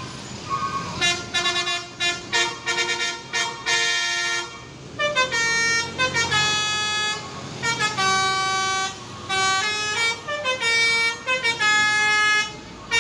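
Bus 'telolet' musical horn playing a tune: a run of quick short toots about a second in, then longer held notes that step and slide up and down in pitch.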